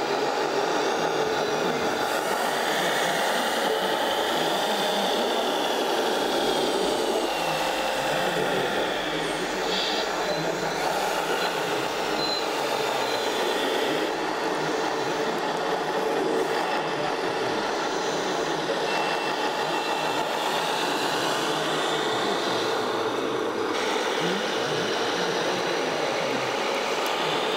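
Radio-controlled model vehicles running: a steady mechanical noise, with a faint whine that rises and falls a few times.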